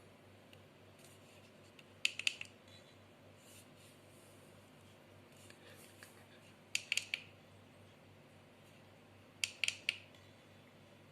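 FeiyuTech Vimble One gimbal stabiliser making a stray clicking noise while running: three short bursts of rapid sharp clicks, a few seconds apart, over a faint steady hum. The clicking is the fault being shown.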